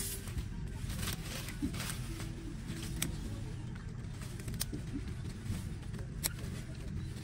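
Grape-picking snips cutting bunches off the vine: sharp clicks every second or two, irregularly spaced, over a steady low rumble.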